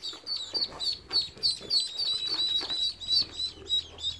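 A group of ducklings and chicks peeping: short, high calls in a rapid run, several a second, with many birds overlapping.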